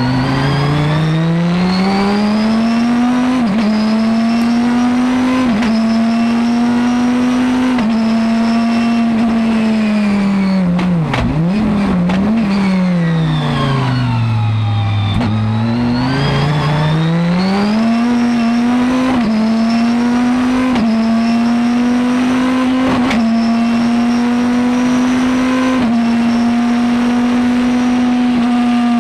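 Chrysler Viper GTS-R's 8.0-litre V10 race engine, heard from inside the cabin, pulling hard. Its pitch climbs through a run of quick upshifts, then falls away about ten seconds in under braking, with short throttle blips on the downshifts. It climbs through the gears again and holds high near the end.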